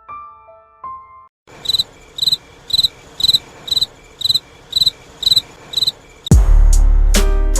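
Cricket chirping sound effect, the 'awkward silence' meme: about two short, even chirps a second over a faint hiss, after a faint piano tune ends in the first second. Near the end it cuts abruptly to loud music with heavy bass and sharp drum hits.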